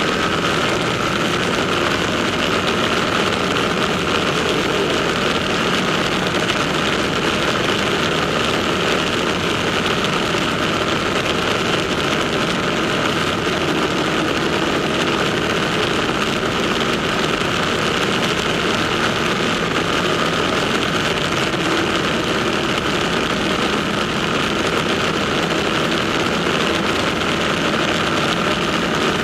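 Ducati motorcycle engines running steadily in a tunnel, the level and pitch holding even throughout with no revving.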